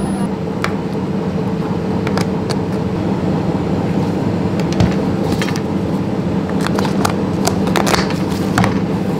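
Steady hum of a commercial ice cream batch freezer's motor running, with scattered sharp clicks and taps of plastic tubs and lids being handled.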